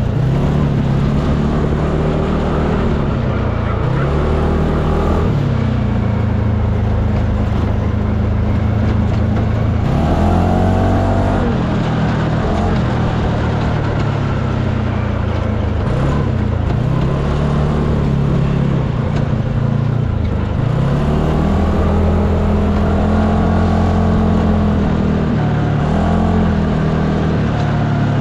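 UTV engine running under load, its pitch rising and falling again and again as the throttle is opened and eased off, over a steady rush of noise.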